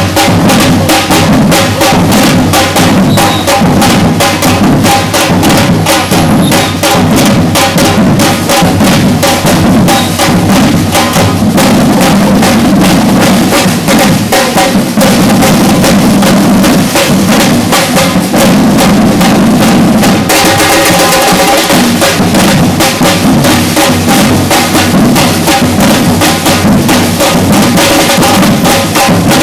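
Batucada drum ensemble playing a fast, steady rhythm together, with bass drums and snare drums, very loud. The texture of the groove shifts about twenty seconds in.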